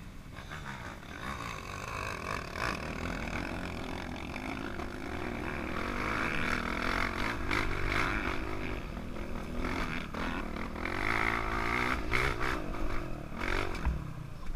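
Dirt bike engine running under load as it climbs a dirt trail, heard close up from the rider's helmet, the revs rising and falling twice.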